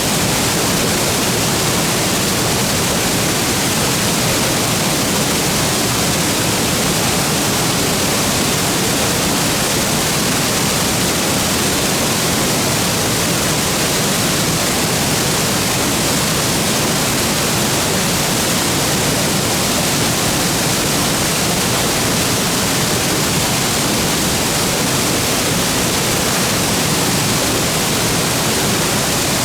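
Waterfall: a steady, loud rush of water falling into its plunge pool, unchanging throughout.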